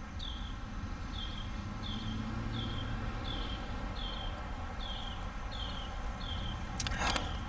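A bird calling: one short falling chirp repeated evenly, about one and a half times a second, over a steady low outdoor rumble. A brief scuff comes near the end.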